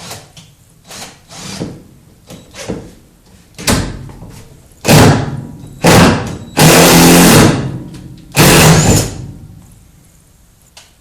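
A series of knocks, thumps and rubbing from handling the camera and tools, growing louder toward a cluster of loud bursts in the second half.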